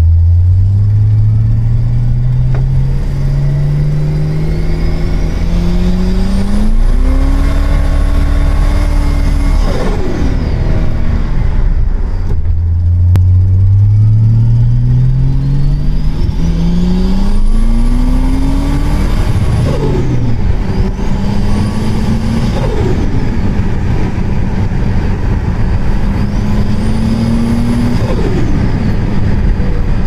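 Turbocharged BMW M20 inline-six in an E28 528e, heard from inside the cabin, pulling hard twice: the engine note climbs steadily for several seconds while a high turbo whistle rises over it, then both drop away sharply. Two shorter pulls with the same rising whistle follow near the end.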